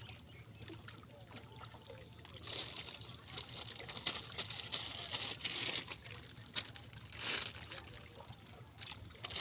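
River water trickling and lapping against concrete bank blocks, with bursts of louder rustling and splashing between about two and a half and six seconds in and again around seven seconds, as a plastic bag is handled on the wet rocks.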